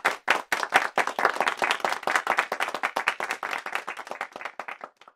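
Audience clapping, the claps thinning out and dying away near the end.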